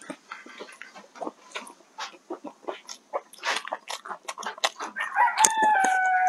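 Soft clicks and chewing from eating rice with chopsticks, then about five seconds in a rooster crows, one long call held at a steady pitch.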